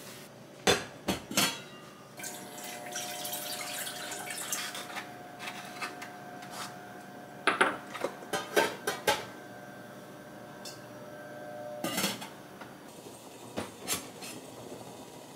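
Stainless steel steamer pot, its metal lid and small glass baby-food jars clinking and knocking: a busy cluster of clinks about halfway through and a few more near the end. Some water splashing, and a faint steady whine underneath for most of it.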